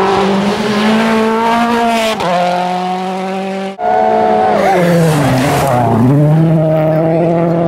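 Rally cars' engines running at high revs on a gravel stage, in short clips joined by abrupt cuts. Past the middle one car's engine note falls and climbs back as it slides through a corner, with gravel spraying from the tyres.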